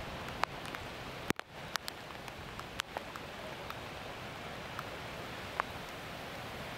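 Floodwater running across a road: a steady hiss of water with a few scattered sharp ticks and a brief dropout about a second and a half in.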